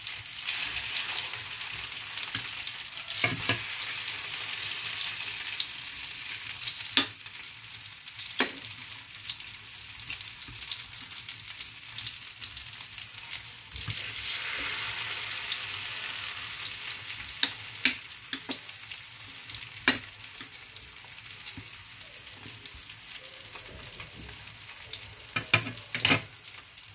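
Battered crab sticks frying in shallow oil in a small pan: a steady sizzle, with a few sharp clicks now and then.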